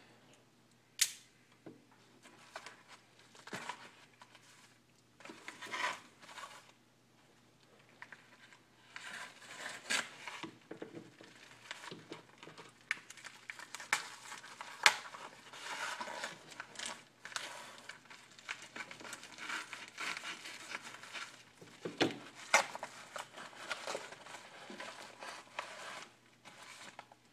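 A cardboard shipping package being opened by hand: tape and cardboard torn, packing material crinkling and rustling, with scattered sharp clicks and knocks.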